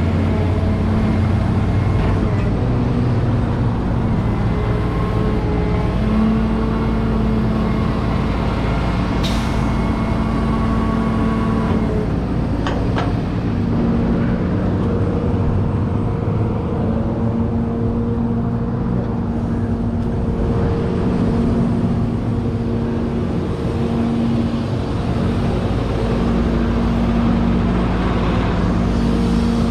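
Tow truck's diesel-sounding engine running steadily, its low hum shifting slightly in pitch now and then, with a few faint clicks.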